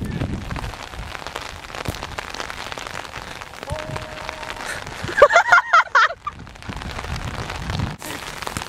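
Steady rushing noise of wind on the microphone of a handheld camera. About five seconds in, a person lets out a short, high, broken yell lasting about a second.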